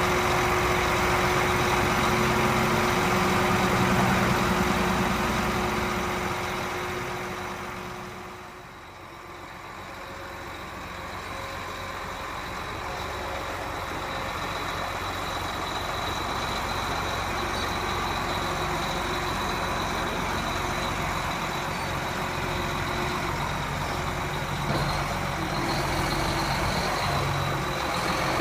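Farm machine's engine running steadily, heard from inside the cab. A steady whine stops about eight seconds in, as the noise fades down briefly before building back up.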